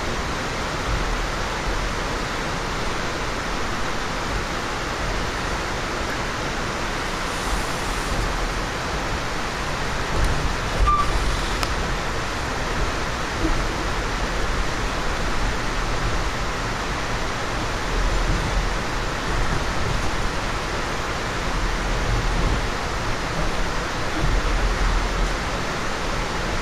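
Steady rushing noise inside a moving passenger train car, the wheel-and-rail running sound mixed with ventilation hiss, with deeper rumbles swelling now and then.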